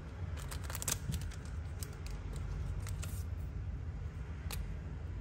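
Light clicks and small rustles of hands handling small objects at close range, a quick cluster of clicks about a second in and single ticks after, over a steady low hum.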